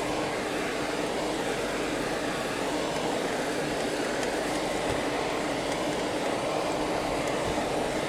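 Steady running noise of a car driving slowly over a rough dirt and stone track, heard from inside the cabin: engine hum and tyre rumble with a few faint knocks.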